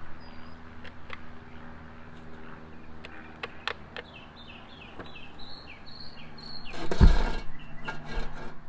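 Scattered light clicks and knocks of screws and plastic cleaner parts being handled, with a run of short high chirps in the middle and one heavy thump about seven seconds in.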